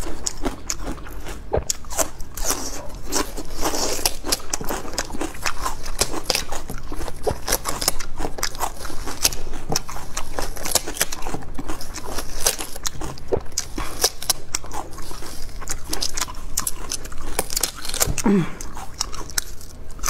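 Close-miked biting and chewing of raw watermelon flesh: a fast, continuous run of crisp crunches.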